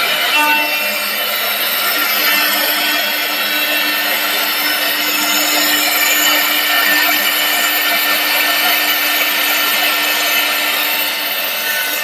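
CNC wood-turning lathe machining a wooden workpiece: a steady cutting and chip-removal noise over an even motor hum that comes in about half a second in.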